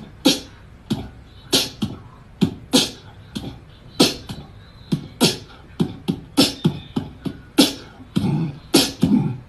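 Background music: a percussive beat of sharp hits, about two a second, in the style of beatboxing.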